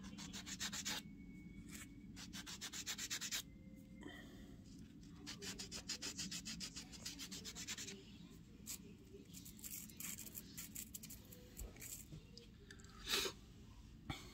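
Quick, light rubbing strokes against a fingernail, in runs of about ten strokes a second with pauses between, as excess dip powder is worked off the nails during a dip-powder manicure. A single louder tap comes near the end.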